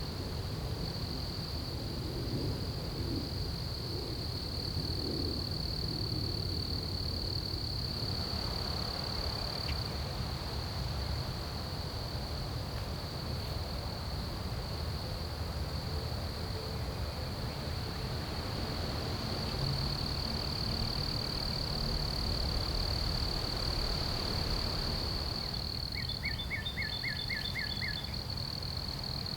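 Steady high-pitched insect drone over a low rumble, with a bird calling a quick run of about seven short notes near the end.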